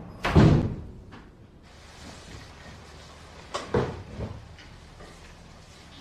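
A door thumps shut just after the start, then two or three quieter knocks come about three and a half seconds in, as a storage-room door and cupboards are handled.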